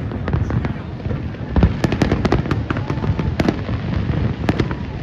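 A fireworks display: many sharp bangs and crackles in quick, irregular succession over a continuous low rumble of distant bursts.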